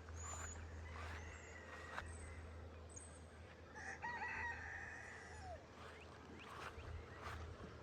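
A rooster crowing once, faintly, about four seconds in, over a steady low hum.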